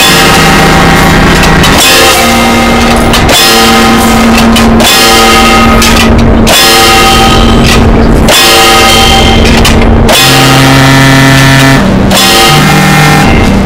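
Harsh noise music: a dense, heavily distorted wall of noise at full loudness, with held droning tones that change pitch in blocks about every one and a half seconds.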